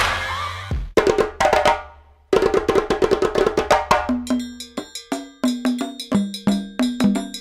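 Background music: a percussion track that opens on a deep hit dying away, then from about two seconds in settles into a quick, even rhythm of short struck notes over a low bass line.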